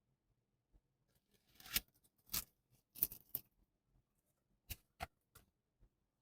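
A quiet run of about seven short scrapes and clicks from a keyboard's packaging being handled during unboxing; the loudest come at about two seconds and three seconds in.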